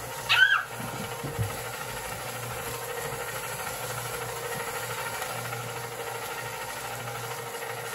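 Electric ice cream maker running: the motor on top of the ice-packed bucket hums steadily as it turns the canister. A brief voice cuts in about half a second in.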